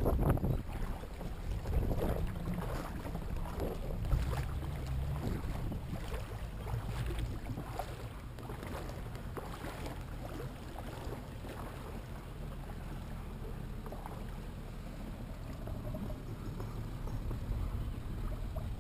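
Camera-handling noise: rustles and knocks as the action camera is carried and fixed onto the jet ski, busiest in the first half, over a steady low rumble.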